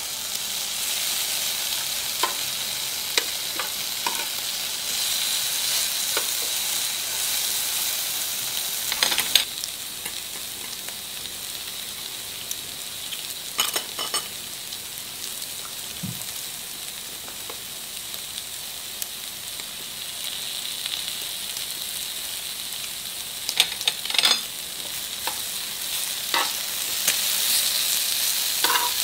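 Sliced meat, mushrooms and rice cakes sizzling on a hot tabletop grill plate, a steady frying hiss. Metal tongs click against the pan a handful of times as pieces are turned.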